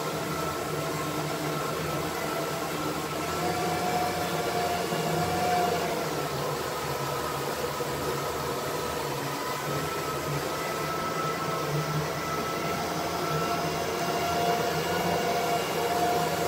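A river cruise boat's engine running steadily on board: an even drone with faint whining tones over a steady hiss.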